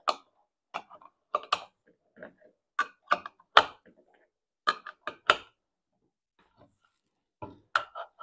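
Rifle cartridges in .308 Win being taken from a plastic ammo box and pressed one at a time into a rifle's magazine: a string of sharp metallic clicks and clinks, irregularly spaced, with a pause of a couple of seconds before two more clicks near the end.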